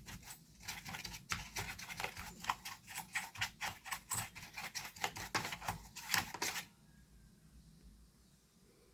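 A brush scrubbing dust off inside an induction cooker, in quick scratchy strokes about three or four a second. The strokes stop about two-thirds of the way through.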